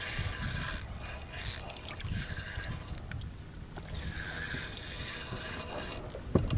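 Spinning reel being cranked while a hooked largemouth bass is played toward the boat, over a low uneven rumble.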